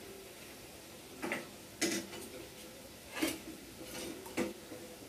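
Four light clicks, irregularly spaced about a second apart, over a faint steady room background.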